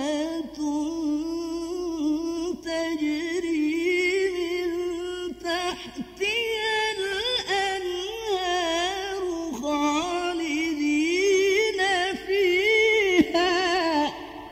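A male qari reciting the Quran in melodic tilawah style, drawing out long ornamented phrases with wavering pitch. The voice climbs higher about six seconds in and breaks off at the very end.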